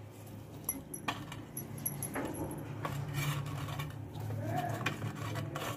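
Hands rubbing and shifting salted, turmeric-coated bitter gourds around in a stainless steel plate, with a few light clicks of the gourds against the metal, over a low steady hum.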